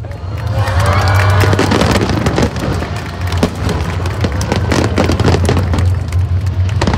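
Fireworks display: dense crackling and popping of bursting shells, many sharp cracks in quick succession, with music playing along.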